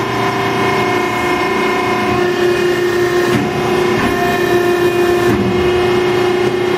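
Hydraulic pump and 12 HP motor of a 1999 Adira 165-ton CNC hydraulic press brake running, a steady hum with a whine.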